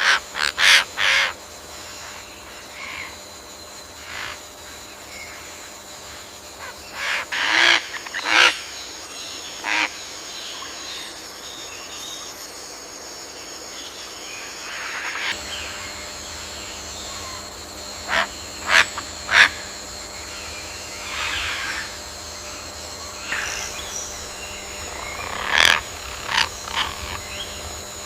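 Rainforest ambience: a steady high hum with short, harsh animal calls coming in clusters of two or three, the loudest around a third of the way in and near the end.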